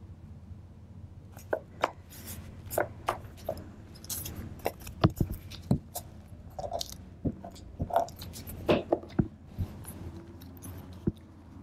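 Paper being handled: a string of short crinkles, crackles and taps as pieces of paper are picked up, moved and tucked into journal pages, starting about a second in, over a faint low hum.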